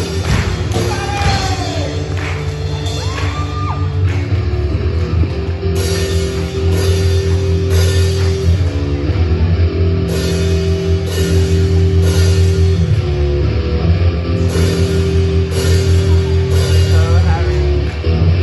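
Rock music played live on an amplified electric guitar, long-held chords with a steady pulse from a few seconds in. A few rising and falling whoops from the audience in the first few seconds.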